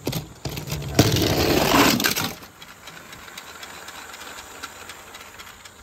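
Plastic toy trains and balls clattering and rattling: a few clicks, then about a second of loud clatter, fading to faint ticks.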